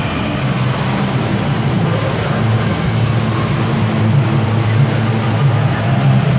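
Swimmers splashing in an indoor pool over a steady low drone.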